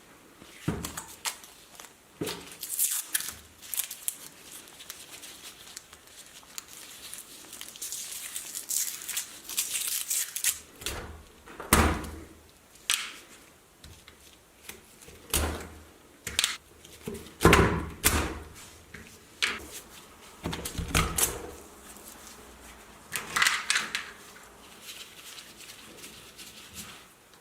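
Irregular knocks, clicks and rattles from an antique calculator and its parts being handled during repair, with a few louder thunks about twelve and seventeen seconds in.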